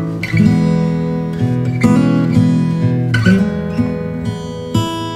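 Acoustic guitar music with strummed and plucked notes and a heavy low end, played back through a home-built 5-ampere power amplifier and its speaker in a sound test.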